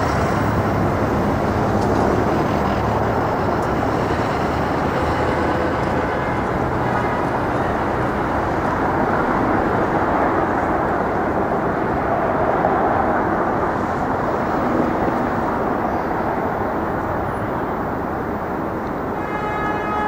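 Steady traffic noise from a busy city street, an even wash of passing vehicles. A brief pitched tone sounds near the end.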